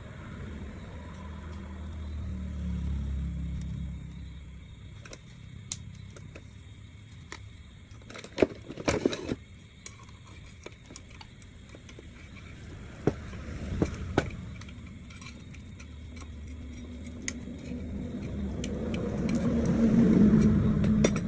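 A motor vehicle's low engine rumble swells and fades twice, briefly near the start and rising to its loudest just before the end, as vehicles pass. Sharp clicks and taps come in between, a cluster about eight seconds in and another about thirteen seconds in.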